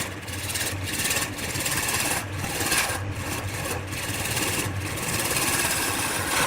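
Wood lathe running with a turning tool cutting into the spinning wood: a steady motor hum under a hissing cut that breaks off briefly several times as the tool is lifted and set back on.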